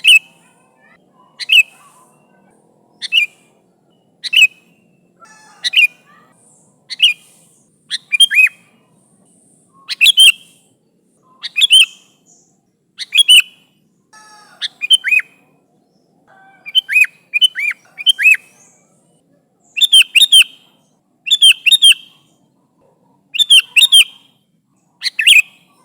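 Sooty-headed bulbul (kutilang) calling over and over in short, sharp phrases of one to three quick notes, about one phrase every second and a half. These are its loud calls to other bulbuls.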